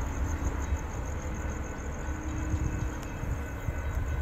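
Florida East Coast Railway diesel locomotive approaching at a distance: a steady low rumble.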